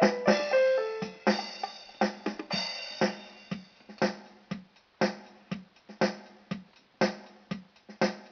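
Electronic keyboard's built-in drum rhythm playing a steady beat, about two hits a second, with a few falling keyboard notes in the first second.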